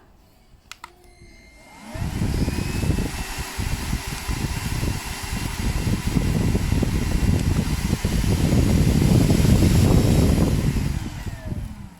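Airbot Airism CV100 cordless stick vacuum switched on about two seconds in, its motor running with a steady whine over a loud rush of air, loudest near the end, then shut off shortly before the end. A couple of small clicks come just before it starts.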